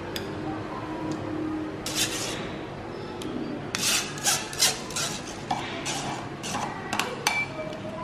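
Metal spoon scraping and clinking against tall glasses as boba pearls are spooned in: one scrape about two seconds in, a run of short scrapes from about halfway, and a couple of sharp clicks near the end.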